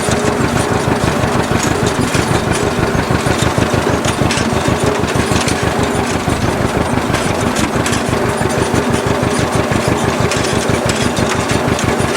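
Engine of a 1957 propane-fuelled John Deere tractor running steadily with an even pulsing beat as it pulls a hay rake.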